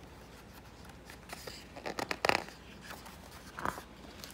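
A page of a picture book being turned by hand: a paper rustle and flap about two seconds in, followed by a softer brush of the page a little later.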